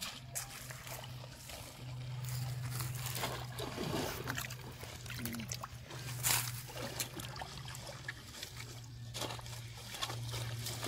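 River water sloshing and splashing around a wading boy as he drives a long bamboo pole down through a mat of water hyacinth, with a few sharper splashes; the loudest comes about six seconds in. A steady low hum runs underneath.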